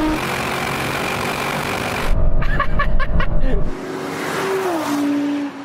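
Audi R8 GT's V10 and Audi RS6 GT's twin-turbo V8 at full throttle near the end of a quarter-mile drag race, over heavy wind and road noise. About two seconds in it gets louder with a rapid run of sharp crackles. After that it is quieter, and an engine note falls in pitch as the cars go past the finish.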